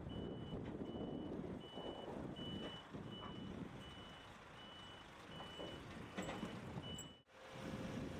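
A heavy machine's backup alarm beeps steadily, a single high tone about one and a half times a second, over the low rumble of its engine. Both cut off abruptly about seven seconds in.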